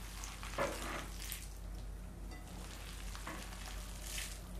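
Food sizzling in a frying pan: a steady hiss with a few brief louder spurts.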